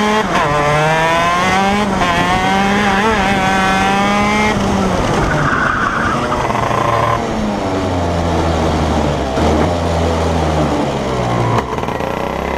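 Shifter kart's two-stroke engine at high revs, pitch rising and dipping, until the throttle shuts about four and a half seconds in and the engine falls to a low, uneven note as the kart slows.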